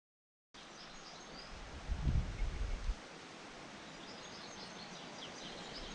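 Silence that cuts into outdoor ambience about half a second in: a steady hiss of open air with small birds chirping now and then, and a few low rumbles of wind or handling on the microphone about two seconds in.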